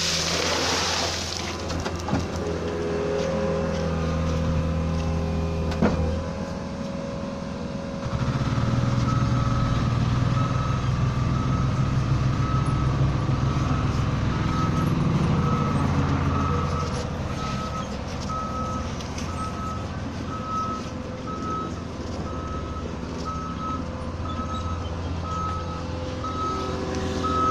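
Diesel construction machine's engine running under work, with a few knocks and a short hiss early on; from about a third of the way in, its reversing alarm beeps steadily, about one and a half beeps a second.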